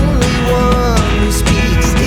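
Background music: a guitar-led song with a steady beat and a gliding melody line.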